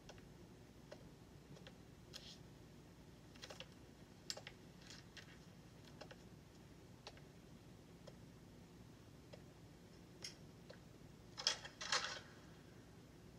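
Quiet room tone with scattered faint clicks and small rustles, and two louder brief rustling noises near the end.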